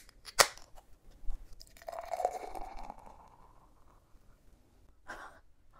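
An Asahi beer can's tab cracked open with a sharp snap about half a second in, followed by beer pouring into a glass and foaming up, fading out after a second or two.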